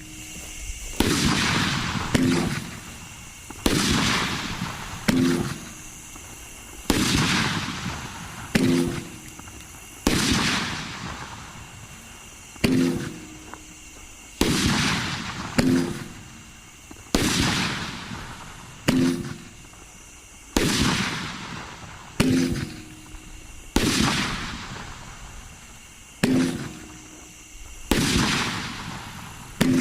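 A 500 gram aerial fireworks cake firing shot after shot in a steady sequence, about one loud bang every second and a half, each trailing off into a rumbling echo.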